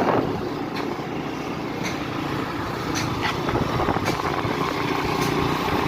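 Motor vehicle on the move: steady engine and road noise, with a few faint clicks.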